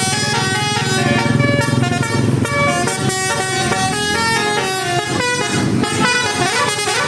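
Bus telolet horn playing a quick tune of stepping multi-tone notes over the bus's engine running.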